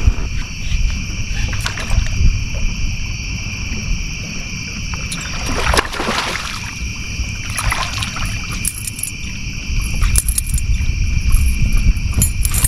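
Night insects chirring in a steady high chorus over a low rumble, with a couple of brief swishes about six and eight seconds in.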